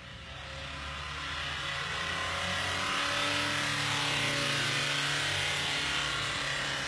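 Runaway diesel engine racing out of control at high revs, a steady engine note under a loud hissing rush that grows over the first two or three seconds. The engine is feeding on its own oil and cannot be shut off with the key.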